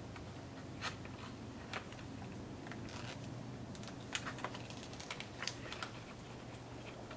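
Irregular light clicks and taps of small electrical parts and wires being handled, busiest about four to six seconds in, over a steady low hum.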